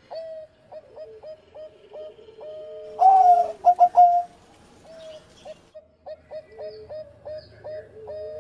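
Zebra dove (perkutut) cooing: a run of short, clipped coo notes with a lower held note beneath them, loudest in a quick cluster about three seconds in.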